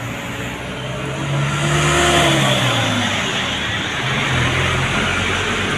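A motor vehicle drives past close by. Its engine note and tyre noise swell and rise in pitch, then fall away about two seconds in, and a lower engine note carries on after it.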